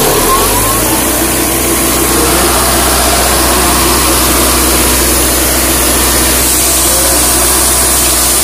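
Atlas Copco portable air compressor's diesel engine, just started after an oil change, running steadily with a low, even hum.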